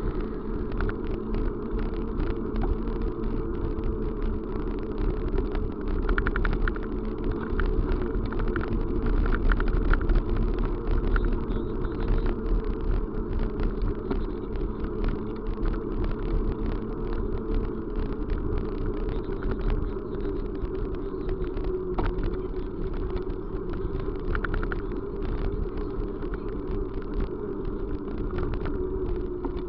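Steady running rumble of a vehicle on the move, with a few small clicks.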